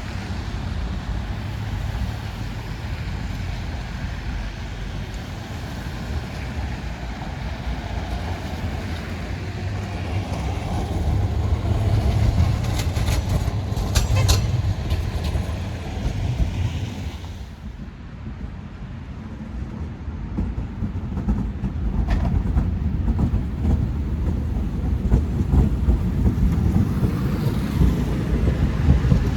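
Stockholm Spårväg City tram running on its track: a steady low rumble of motors and wheels that swells and fades, with a few sharp clicks about halfway through.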